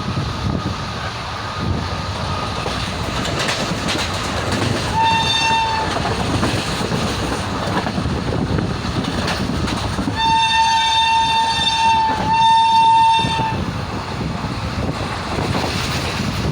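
Shrill horn of the Okha–Bhavnagar Express locomotive: one short blast about five seconds in, then two long blasts back to back a few seconds later, over the steady rumble and clickety-clack of the passing train running through the station without stopping.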